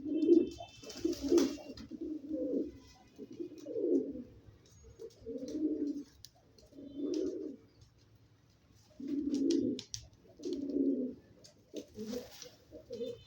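Domestic pigeon cooing: a string of low, throaty coo phrases about a second long, repeated with short pauses.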